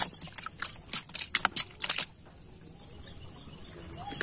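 Nylon gill net being handled by hand while a fish is picked out of the mesh: quick, irregular crackling clicks that stop about two seconds in, with a steady high insect buzz behind.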